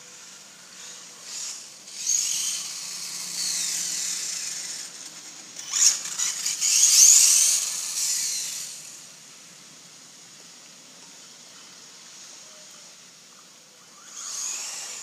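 Traxxas 1/16 Slash VXL RC truck's brushless electric motor whining, its pitch rising and falling as the truck speeds up and slows, with its tyres hissing on the wet road. There are two loud runs, the loudest about seven seconds in; it then drops to a faint steady hiss and comes back up near the end.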